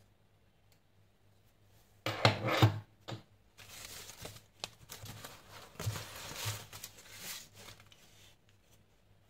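Crumpled newspaper packing and cardboard rustling and crinkling as they are pulled out of a box by hand. It starts about two seconds in with a short loud burst, then goes on as steady rustling for several seconds.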